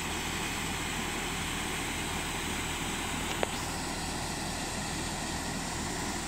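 Steady low engine hum, even throughout, with a single short click about three and a half seconds in.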